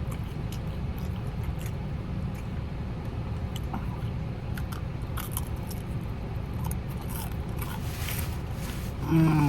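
Chewing and crunching of fried chicken and tostones, with scattered crisp crunches, over a steady low rumble. A short voiced hum, falling in pitch, comes near the end.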